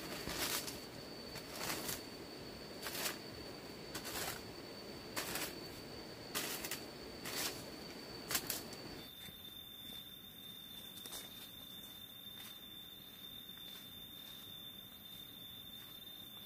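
Eight short, sharp strikes about a second apart, ending about eight seconds in. A steady high thin whine runs underneath and drops slightly in pitch about nine seconds in.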